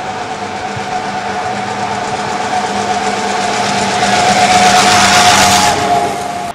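Pre-1905 veteran car's engine and running gear going by, with a steady whine, getting louder as it passes close by and dropping away near the end.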